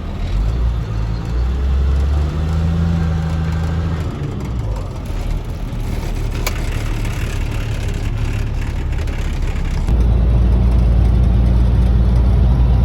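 Semi-truck diesel engine and road noise heard inside the cab, a steady low rumble that steps up louder about ten seconds in.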